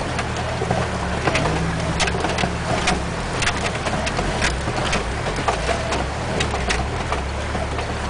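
Heard from inside the cab, a 4x4's engine runs steadily at crawling speed through a shallow rocky river crossing, with water splashing and scattered sharp knocks and clatter as the tyres go over rocks.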